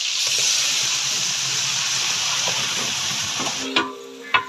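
Paste poured into hot oil in a large biryani pot, giving a loud, steady sizzle that cuts off about three and a half seconds in. Two ringing metal clanks follow.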